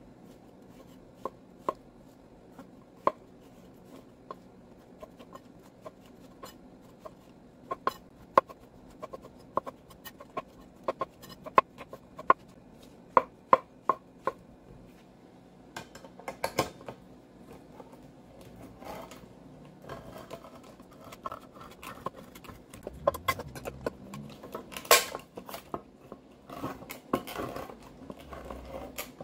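Knife slicing fresh cremini mushrooms on a wooden cutting board: sharp, separate knocks of the blade hitting the board, at an uneven pace. Past the halfway point the sounds turn busier and denser, and near the end a handheld can opener works on a tin can.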